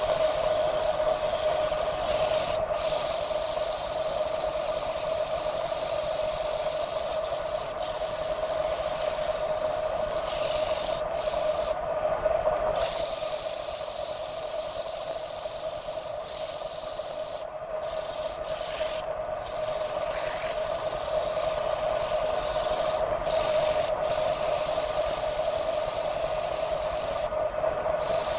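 Wood lathe running with a steady whine, while abrasive rubs against the spinning workpiece in a steady hiss. The hiss drops out briefly several times as the contact is lifted.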